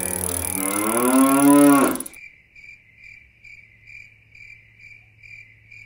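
A cow's long moo, rising in pitch and then falling, cut off abruptly about two seconds in. Crickets then chirp steadily at about three chirps a second.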